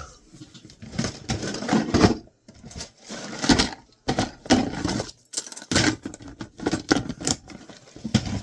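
Irregular clattering, clicking and rustling of small hard-drive parts being handled and moved about.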